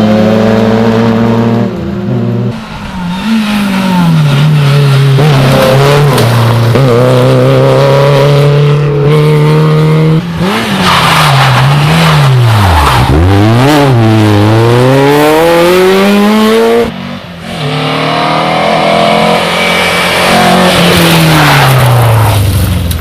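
Rally cars driven hard on a special stage, one after another, with engines revving high. The pitch climbs through the gears, drops sharply off the throttle and on downshifts, then climbs again.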